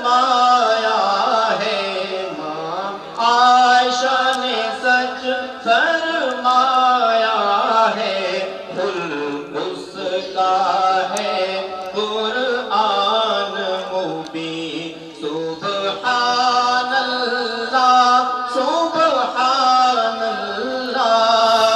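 Male voice singing an Urdu naat in long, wavering, drawn-out notes.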